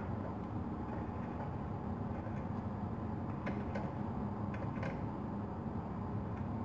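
A few light metallic clicks, mostly around the middle, as a T-handle tap wrench is fitted and turned in a part held in a steel drill-press vise. Under them runs a steady low hum.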